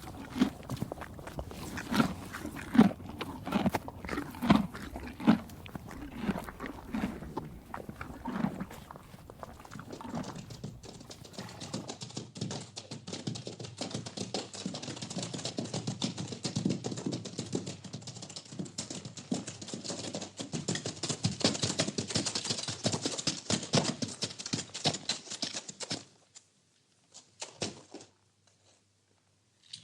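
Stable ambience: an animal making a run of low, repeated pitched sounds for the first ten seconds or so. Then, after a cut, dense rustling and crackling that stops abruptly a few seconds before the end.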